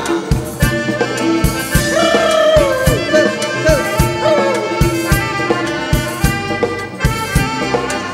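Live Thai ramwong dance-band music: a steady drum beat under a lead melody that bends and slides in pitch.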